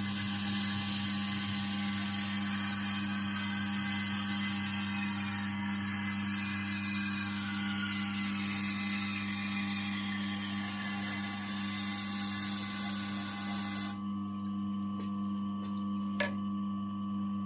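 Knife being sharpened on a Tormek sharpening machine: the motor hums steadily while steel grinds against the wheel with a high hiss. The grinding stops about 14 seconds in, leaving the motor hum, and there is a single click near the end.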